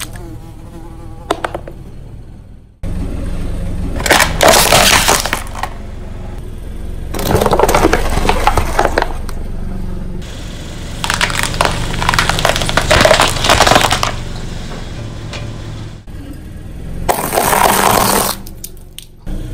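A car tyre rolling over and crushing objects in separate takes: about four loud bursts of crunching and cracking, among them a metal cookie tin being flattened and plastic toy light bulbs breaking. A car engine idles steadily underneath.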